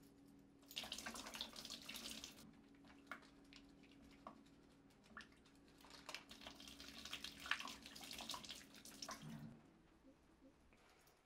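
Rustling and small metallic clicks of a metal-link wristwatch bracelet being handled and fastened, in two spells: one about a second in and a longer one from about six seconds in.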